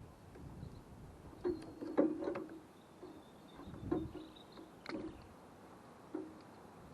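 Several light, irregular knocks, about six in the space of five seconds, the loudest about two seconds in, with faint high bird chirping behind them.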